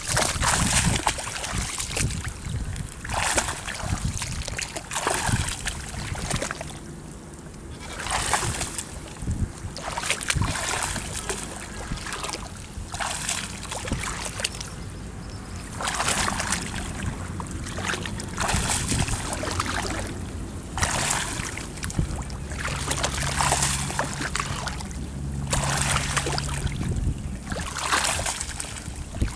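Water splashing and sloshing in repeated bursts every second or two.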